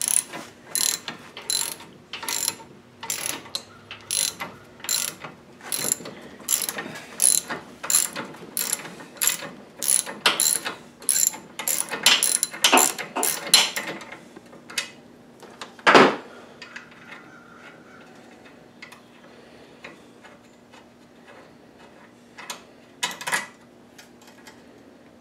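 Ratchet wrench cranked in steady short strokes, about two clicks a second, pressing a new lower ball joint into the control arm. The cranking stops about 14 seconds in, followed by one loud metal knock and a few more clicks near the end.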